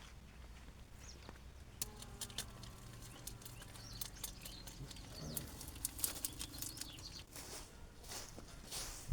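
Faint outdoor farmyard sound: scattered clicks and knocks over a low rumble, with a few bird chirps about halfway through.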